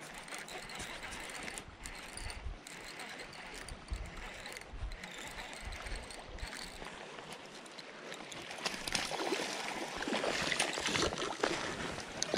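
Creek water running steadily in swift current. Over the last few seconds there is louder, busier splashing as a hooked smallmouth bass thrashes at the surface while it is pulled into the shallows.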